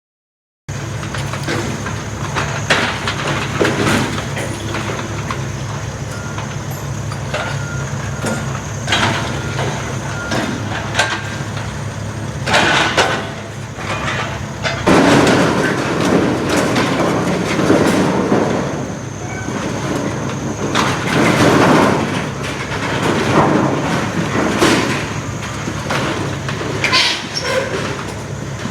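A heavy demolition machine's diesel engine runs steadily while debris crashes and scrapes at irregular intervals as the building is torn down.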